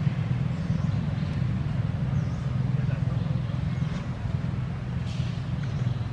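A steady low droning hum, like an engine or machine running, with faint short high-pitched peeps now and then.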